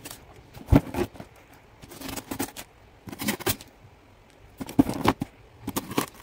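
Pocket-knife blade slitting packing tape on a cardboard box, heard as a series of short scraping, crackling strokes with a few knocks against the cardboard, the loudest about a second in.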